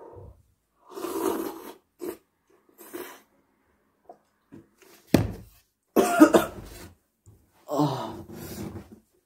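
A man coughing and clearing his throat in a string of short fits, the loudest about five to seven seconds in, while eating spicy instant noodles.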